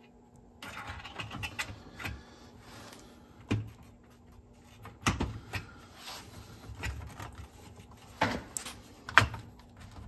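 The front panel of a Technics RS-BX707 cassette deck being handled and fitted back on: scattered clicks and light knocks, with a few sharper clicks in the second half, the loudest near the end.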